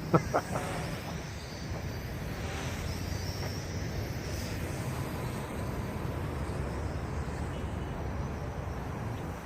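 The MJX X400 micro quadcopter's motors whining faintly in flight over a steady low rumble of wind on the microphone.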